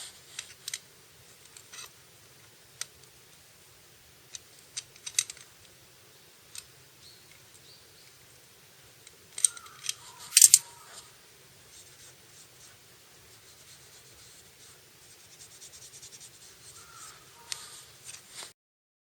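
Scattered sharp clicks and light scraping from hand work, with a louder clatter about ten seconds in.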